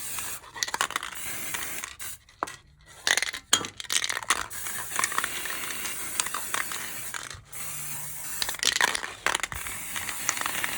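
Aerosol spray paint hissing onto a repaired steel bumper iron in stop-start bursts, broken by short pauses, with metallic clinks and scrapes in between.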